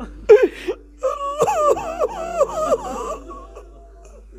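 A person weeping aloud: a sharp sob, then a wavering, breaking cry that rises and falls in pitch for about two seconds before it dies down.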